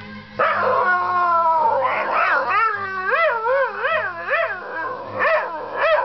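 A dog "singing": it howls in one long, slowly falling note, then in a warbling howl that wavers quickly up and down, then in short howls near the end.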